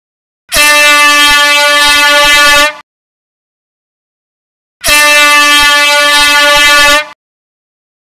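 Air horn sounding two loud, steady blasts of about two seconds each, a couple of seconds apart.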